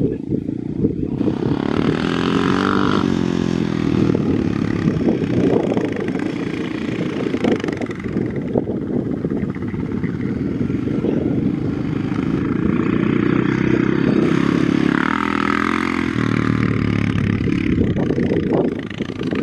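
Honda XR500 single-cylinder four-stroke dirt bike engine running under load as it is ridden through sand, revving up and falling back in pitch several times.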